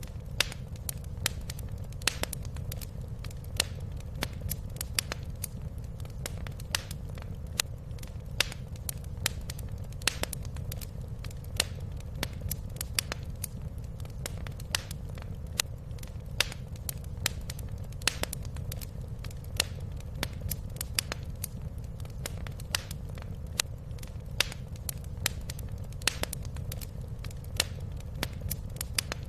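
Wood fire crackling in a fireplace: frequent, irregular sharp pops and snaps over a steady low rumble of the burning fire.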